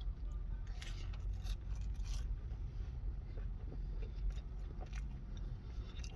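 A person chewing fries dipped in chipotle mayo, with scattered small mouth clicks.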